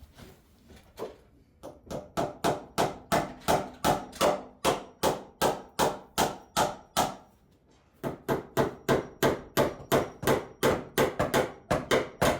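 Hammer driving nails into wood: a steady run of strikes, about three a second, stopping briefly a little past halfway before carrying on.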